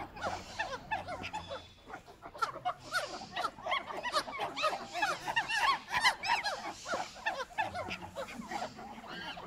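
Monkeys calling in a chorus of rapid, overlapping high chirps and squeaks.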